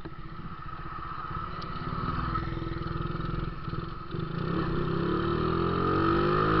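Jonny 50cc motorcycle with a 'boca 8' exhaust, running under way as it is ridden. The engine note dips briefly about three and a half seconds in, then climbs steadily and grows louder as the bike speeds up.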